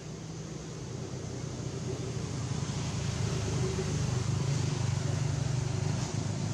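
A motor vehicle's engine running as a steady low hum, growing louder over a few seconds and easing off slightly near the end.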